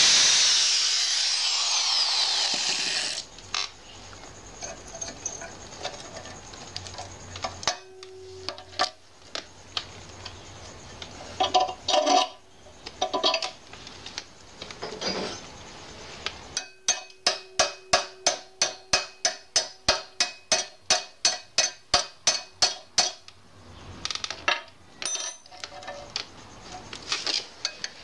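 Angle grinder lifted off the work, winding down and stopping about three seconds in. After that come scattered clicks and knocks of tools on the work, including a quick, even run of sharp taps at about three a second a little past halfway.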